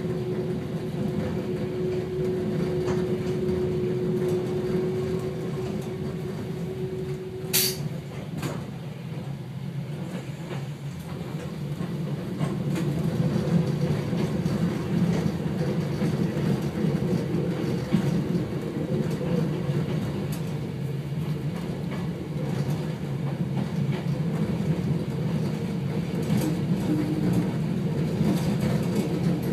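Hakone Tozan Railway electric train running on the mountain line, heard from inside the driver's cab: a steady rumble of wheels on rails and running gear. A steady hum runs under it and stops at a single sharp click about eight seconds in.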